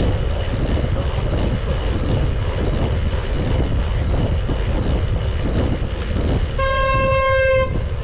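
A vehicle horn blows one steady single-note honk lasting about a second near the end, over the constant wind and road rush of a motorcycle riding at speed.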